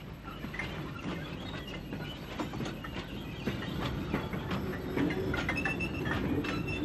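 Narrow-gauge steam tank locomotive shunting goods wagons: a steady rumble with irregular clanks and knocks from the engine and wagons, stopping just after the end.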